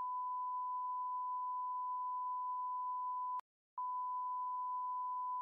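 A steady electronic sine-wave beep held at one pitch. About three and a half seconds in it cuts off with a click, stops for under half a second, then comes back with a click and carries on.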